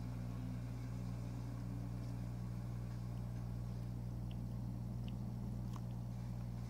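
Aquarium pump humming steadily, a low electric drone, with a few faint ticks in the second half.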